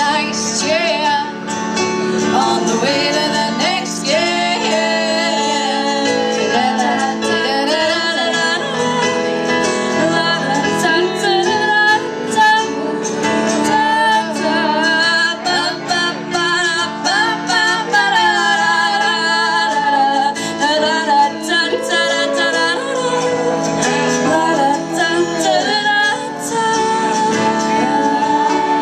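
Live song played on acoustic guitar and electric keyboard with a woman singing.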